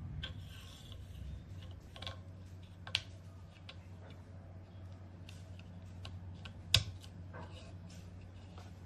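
Keys on a mechanical keyboard with clicky blue switches being pressed in an irregular run of clicks, with two louder clacks about three and about seven seconds in. A steady low hum runs underneath.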